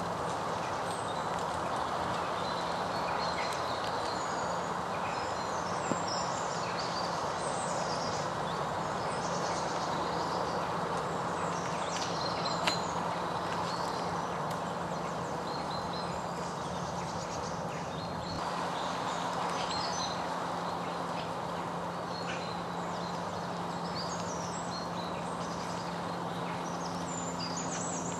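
Outdoor parkland ambience: a steady background hiss with birds chirping and calling in short scattered notes, under a faint low steady hum that a second, slightly higher hum joins about two-thirds of the way in. Two faint clicks, one about six seconds in and one about halfway.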